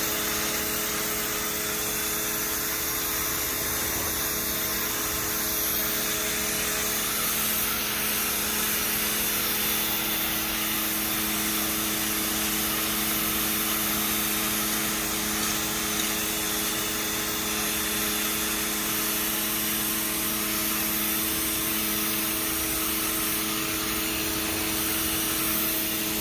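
Westinghouse ePX 1500 electric pressure washer running steadily, its pump motor humming under the hiss of water jetting from the fan-mode nozzle onto a surface.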